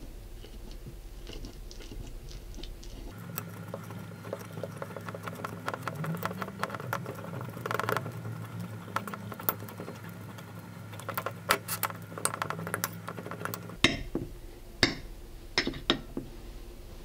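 A metal fork mashing a ripe banana on a ceramic plate: many quick clicks and scrapes of the tines against the plate, with a few sharper taps near the end.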